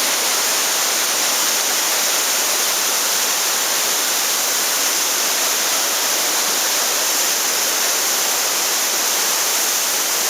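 Waterfall in heavy flow, a loud steady rush of falling water.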